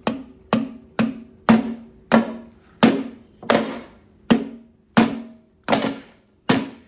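Steady, repeated hammer blows on the connecting rod inside a Honda GCP160 lawnmower engine, about eleven strikes, each with a short metallic ring. The blows are an attempt to knock the seized rod free of the crankshaft, and the rod stays stuck.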